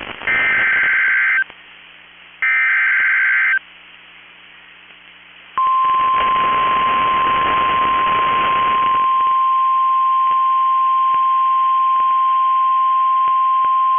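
NOAA Weather Radio alert signal: the last two bursts of the SAME digital header, each a harsh two-tone data burst about a second long and a second apart, then after a two-second pause the steady 1050 Hz warning alarm tone, held about nine seconds, with static hiss under its first few seconds. The tone signals that a new warning is about to be broadcast.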